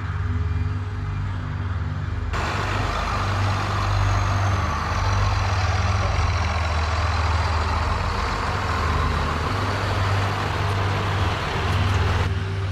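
A heavy diesel engine running low and steady. About two seconds in, a loud rushing hiss joins it, holds for about ten seconds, and cuts off suddenly near the end.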